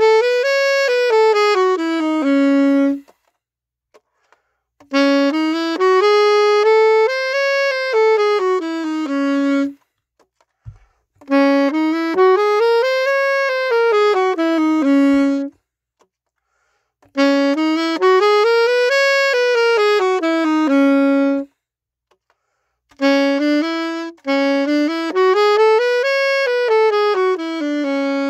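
Saxophone playing a scale exercise: five runs, each climbing about an octave in quick steps and coming back down to end on a held low note, with short pauses between them.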